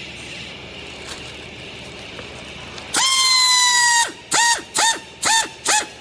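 Pneumatic strapping tool's air motor tensioning a strap around a bale: a loud whine for about a second, sagging slightly in pitch, then four short bursts of the motor.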